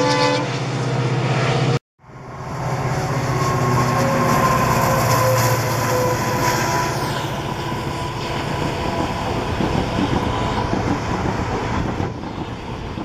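The tail of a diesel locomotive's horn blast at the very start. Then, after a sudden cut, a diesel locomotive hauling passenger coaches passes close by, engine running loud, with wheels clattering on the rails. It fades near the end.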